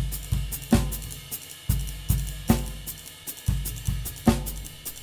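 Drum kit played solo with sticks: bass drum, snare, hi-hat and cymbals in a groove, with a deep kick-drum thump about once a second.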